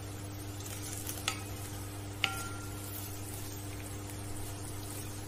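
Wooden spatula stirring cubed potatoes in a sizzling metal wok, with two sharp knocks of the spatula against the wok about one and two seconds in, the second leaving a short metallic ring.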